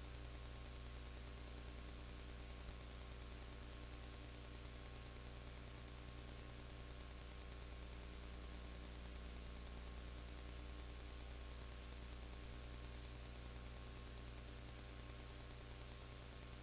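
Steady low electrical hum with hiss, unchanging throughout: only the recording's noise floor, with no sound of the game.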